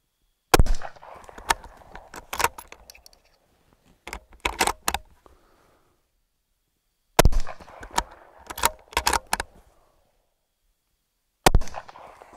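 Three rifle shots from a Ruger American Ranch bolt-action in .223, about half a second in, about seven seconds in, and near the end. After each shot comes a quick run of metallic clicks and clacks as the bolt is worked to eject the case and chamber the next round.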